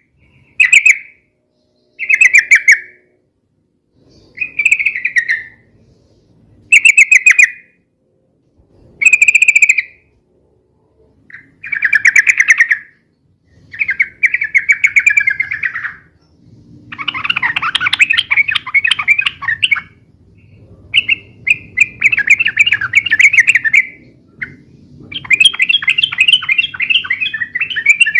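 Yellow-vented bulbul (trucukan) calling noisily in rapid, bubbling phrases. At first the phrases are short, about one every two seconds. From about halfway they grow into longer, busier chattering that runs almost without pause.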